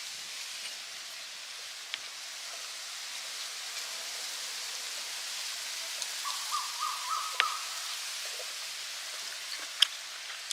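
A bird calls a short run of about four quick, repeated notes about six seconds in, over a steady outdoor hiss with a few sharp clicks.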